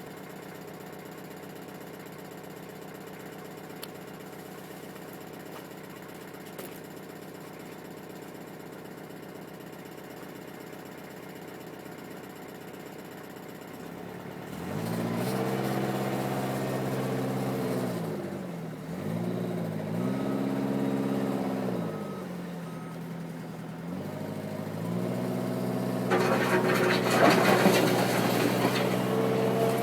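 Eurocomach E 235 K backhoe's diesel engine idling steadily, then revving up about halfway through and rising and falling in speed a few times as the machine works under load. Near the end a louder, rough rushing noise joins the engine.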